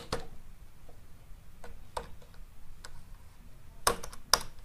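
Scattered keystrokes on a computer keyboard: single clicks spaced about a second apart, with a louder pair about four seconds in.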